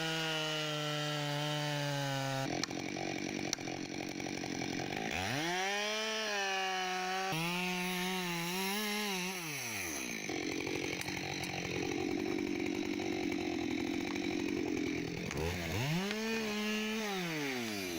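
Two-stroke chainsaw felling a tree, revving up to full speed and dropping back several times, with a rougher, steadier stretch in the middle as it bites into the wood. The sound changes abruptly in places.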